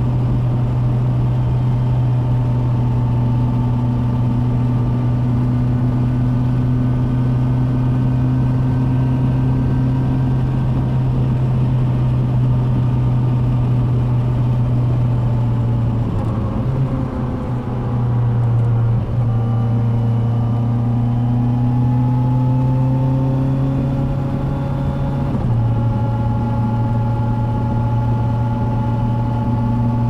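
Kawasaki Versys 1000 SE's 1,043 cc inline-four engine heard from the rider's seat, running with a steady drone at road speed. Past the middle the note dips, falls and climbs again through a downshift, and it steps abruptly once more a few seconds before the end as the bike slows.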